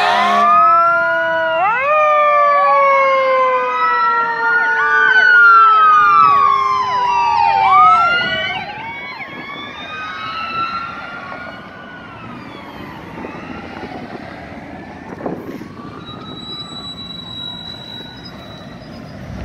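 Several fire engine sirens sounding at once, their rising and falling wails overlapping, loud for the first eight seconds or so and then fading away. Passing traffic noise remains after that.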